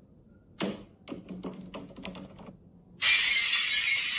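A run of quick, irregular clicks and rattles, then about three seconds in a loud, hissy shattering crash lasting nearly two seconds: a sound effect for a pipe being smashed.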